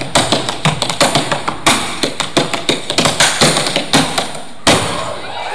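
Tap dancer's metal-plated tap shoes striking a stage floor in a fast, irregular run of taps, ending with one hard stamp near the end.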